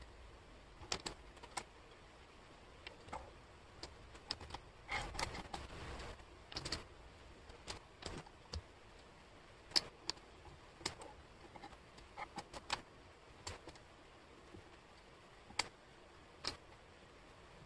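Wooden jigsaw puzzle pieces clicking and tapping on a table as hands pick them up, slide them and set them down. The taps are light and irregular, with a busier stretch of sliding and clattering about five to seven seconds in.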